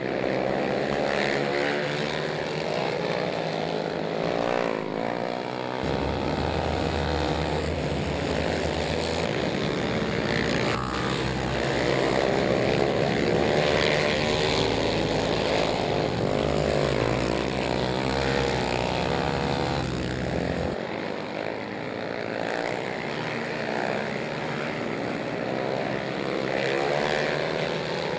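Several racing quad ATV engines running hard, their pitch rising and falling over and over as the riders rev and back off. A heavier low rumble sits underneath for much of the middle stretch.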